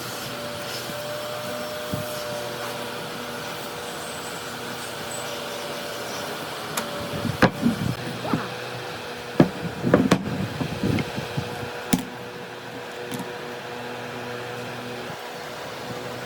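A steady motor hum, with a run of sharp knocks and clatters in the middle.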